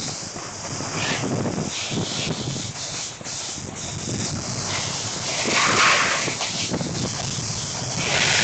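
Snowboard base and edges scraping over firm snow during a downhill run, with wind rushing across the microphone; the scrape swells around six seconds in and again near the end.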